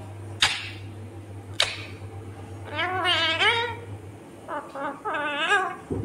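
Indian ringneck parakeet calling: two short shrill screeches in the first two seconds, then two longer warbling, wavering chatters about three and five seconds in.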